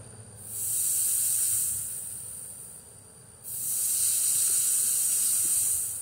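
Two steady hisses of about two seconds each, high in pitch; the first fades in just after the start and the second starts sharply about halfway through.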